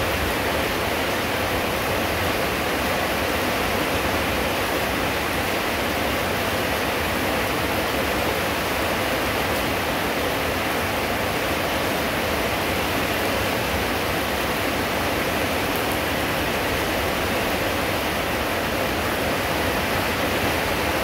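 Steady rain falling, an even unbroken hiss with no separate drops or knocks standing out.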